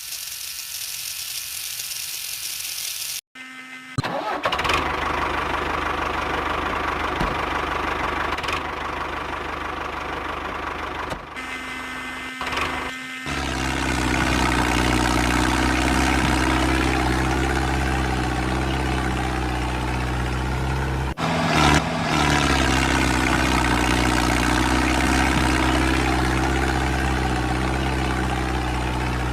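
A high hiss for about three seconds, then the motor of a homemade mini tractor running steadily. It becomes louder and deeper about fourteen seconds in and briefly breaks off near twenty-one seconds.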